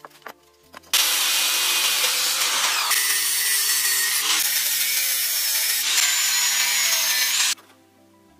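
Angle grinder with an abrasive cut-off disc cutting into an aluminium bicycle-rim strip, a loud, even grinding hiss that starts abruptly about a second in and stops shortly before the end. Background music plays underneath.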